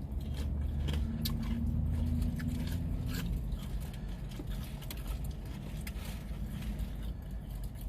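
Close-up chewing and biting on a fried chicken wing: scattered wet clicks and crunches of mouth sounds. A low steady hum sits underneath in the first few seconds.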